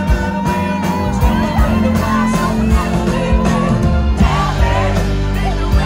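Live rock band playing a song: lead vocals over electric guitar, keyboard, bass and drums, with a long held note in the first two seconds.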